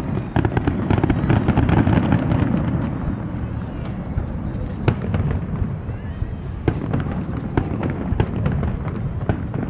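Aerial fireworks bursting: a dense run of sharp bangs and crackles over a low rumble, heaviest in the first few seconds and thinning out after.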